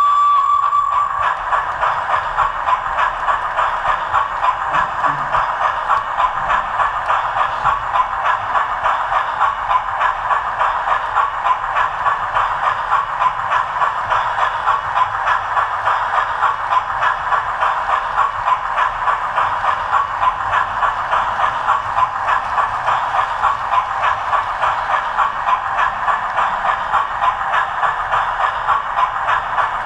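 Model railway train running along the layout track, heard from on board: a steady rhythmic clatter at about two or three beats a second. A whistle sounds at the start and stops about a second in.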